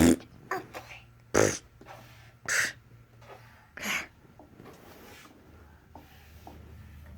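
Playful mouth sound effects: about five short, blown, raspberry-like bursts over the first four seconds, then quiet room hum.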